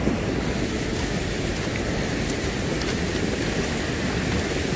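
Steady low rumble of wind on the microphone over small waves washing onto a pebble shore.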